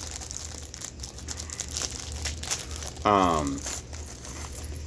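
Plastic bags of Lego pieces crinkling as they are handled and rummaged through. A brief falling hum from a man's voice comes about three seconds in.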